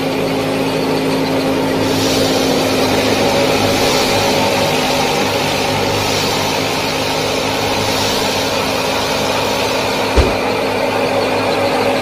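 Small motor of a miniature model machine running steadily with an even hum, with a single brief knock about ten seconds in.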